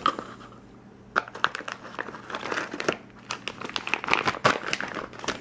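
Packaging crinkling and rustling in short irregular crackles as a box of connecting rods is unwrapped by hand, starting about a second in.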